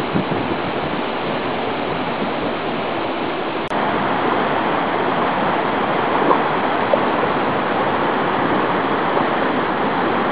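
Mikaeri Falls waterfall rushing steadily close by, strong enough to throw spray. A brief click a little under four seconds in, after which the rush is slightly louder.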